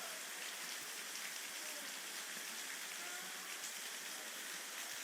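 Steady rain falling in a rainstorm, an even hiss of drops on the ground.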